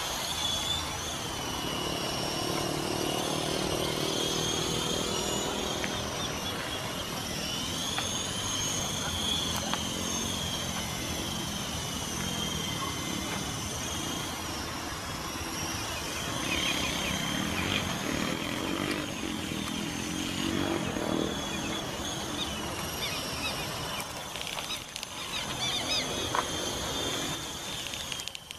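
Battery-powered coaxial RC helicopter's motors and rotors whining steadily in flight, the high pitch drifting up and down as the throttle changes.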